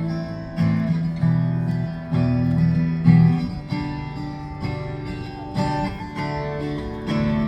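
Acoustic guitar strumming chords in an instrumental break of the song, with no vocals.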